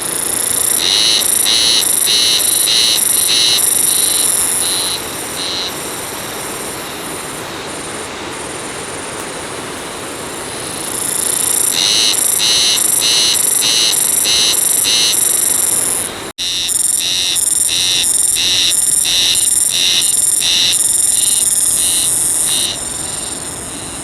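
Spring cicada (haruzemi) singing: phrases of a few seconds each of evenly repeated high, rasping pulses, about two to three a second, over a steady high buzz. There are three phrases, with quieter stretches between them and a very brief break about two-thirds through.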